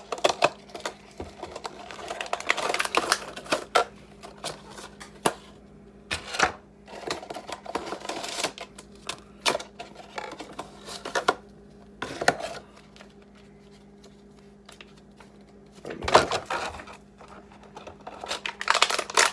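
A cardboard box and its packaging being handled and opened: irregular clicks, rattles and rustles of card and plastic, with louder bursts about two, eight, twelve and sixteen seconds in, over a faint steady hum.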